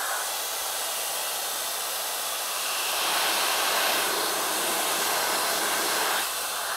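Jellyfish handheld pet dryer running: a steady rush of air from its fan, louder from about three seconds in and dropping back down near the end.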